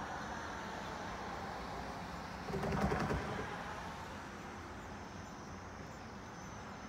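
A bird's wings flapping in a short, quick flutter about two and a half seconds in, lasting under a second, over a steady background rumble.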